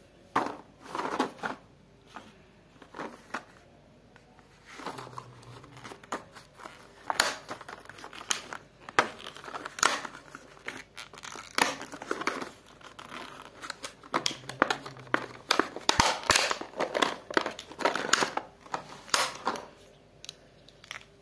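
Plastic blister packaging of a children's stamp set crinkling and crackling as it is handled and opened, with irregular sharp clicks of the plastic stamps and caps being pulled free.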